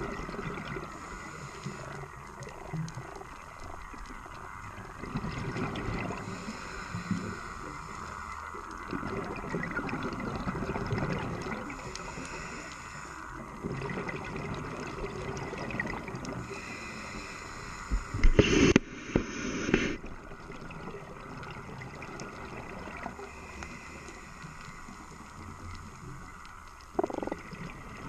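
Underwater sound heard through an action camera's waterproof housing: a steady hiss with bubbling and gurgling that swells every few seconds, and one much louder, sharp burst of noise about two-thirds of the way through.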